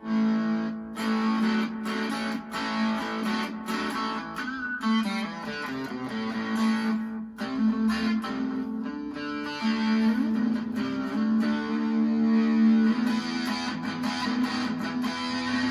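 Electric guitar with a bridge humbucker played through the Dark Realm fuzz pedal, a Big Muff-style fuzz mixed with a Colorsound-style fuzz, playing held chords and notes with long sustain.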